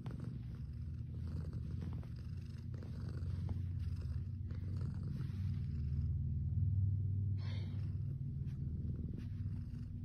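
Domestic cat purring steadily close to the microphone, a low, even rumble that swells louder about two thirds of the way in.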